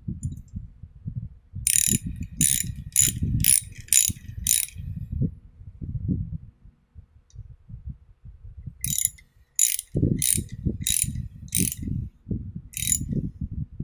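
A T-handle ratchet clicks as a screw is turned into a Bridgeport milling machine's cast quill housing. There are two runs of sharp clicks, six or seven each at about two a second, the first about two seconds in and the second near nine seconds. Dull knocks and handling of the tool on the metal go on underneath.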